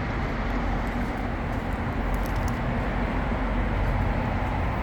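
Steady, low mechanical running noise with a constant hum, with a few faint ticks about two seconds in.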